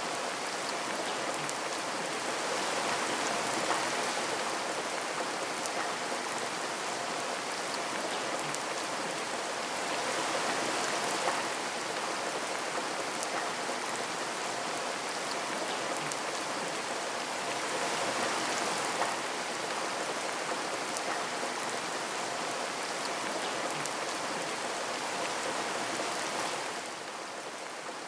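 Steady rainfall, an even hiss of falling rain that swells a little louder a few times and eases slightly near the end.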